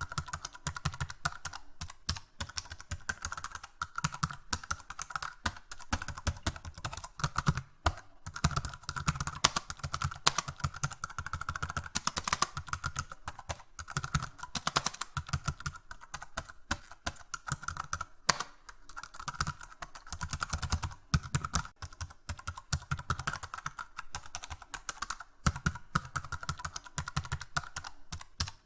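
Continuous fast typing on a computer keyboard: dense, irregular key clicks, several a second, with no pauses of note.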